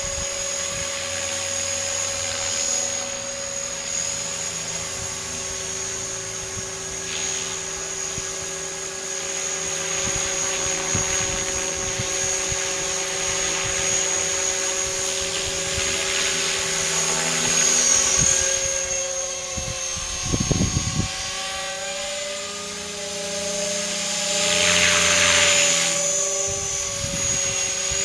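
Align T-REX 500 electric radio-controlled helicopter in flight: a steady whine with the whoosh of the rotor blades, swelling louder about two-thirds in and again near the end. Wind buffets the microphone briefly about three-quarters in.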